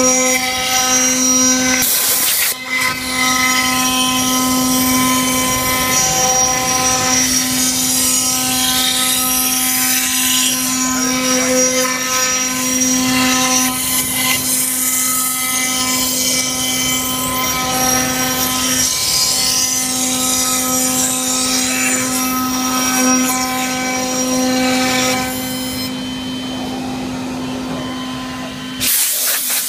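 CNC router spindle running at a steady pitch while its bit cuts camphor laurel wood, with a constant whine over the hiss of cutting and flying chips. The cutting noise thins out near the end, followed by a short, loud rushing noise.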